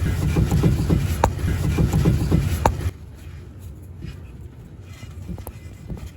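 Mini Cooper R56 front suspension clunking: a few sharp knocks over a low rumble, the clunk that comes from worn front sway bar bushings. The rumble drops away suddenly about three seconds in, and fainter knocks follow.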